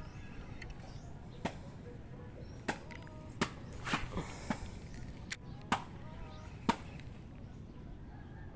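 About eight sharp knocks and slaps at irregular intervals, over a steady low rumble of water and wind.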